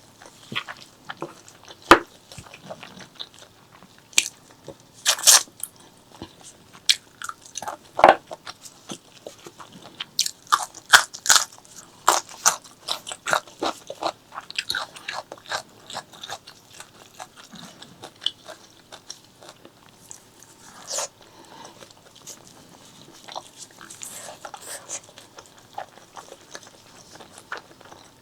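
Close-miked eating of spicy pork leg curry with rice: chewing with irregular sharp, wet mouth clicks and smacks, busiest about halfway through.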